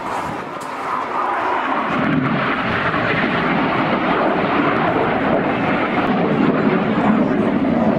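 Red Arrows BAE Hawk jets flying past, a steady jet-engine roar that grows deeper and a little louder about two seconds in.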